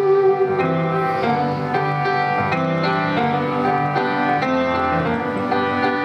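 Petrof grand piano playing a slow sequence of chords, with a flute's held note ending about half a second in.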